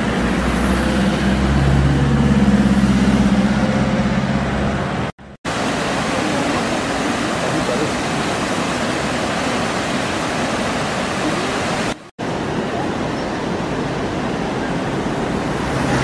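Three short stretches split by brief cuts: first a motor vehicle's engine running close by with a low hum, then a steady rush of river water pouring over a weir, then street traffic with a car passing close near the end.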